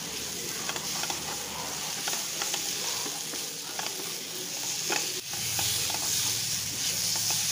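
Ground green masala paste sizzling in hot oil in a pan while a wooden spatula stirs and scrapes it, with scattered light clicks of the spatula against the pan. The paste is being fried until the oil separates so it loses its raw taste.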